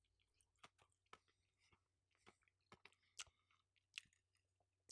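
Faint mouth sounds of a person chewing food: scattered soft crisp clicks and crunches, two of them louder at about three and four seconds in.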